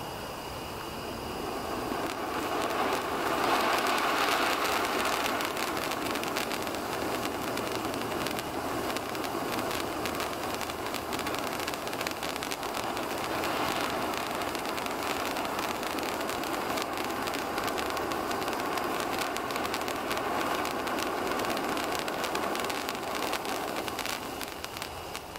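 Handheld fountain firework burning: a steady hiss of spraying sparks with fast small crackles, swelling about two seconds in and dying away near the end.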